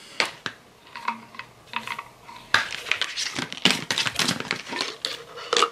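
Hard plastic shaker bottle being handled and its screw-on lid twisted off: scattered clicks and clatter, busier in the second half.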